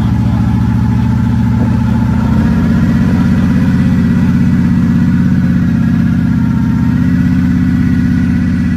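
Off-road 4x4's engine running steadily at low revs, a deep, evenly pulsing rumble.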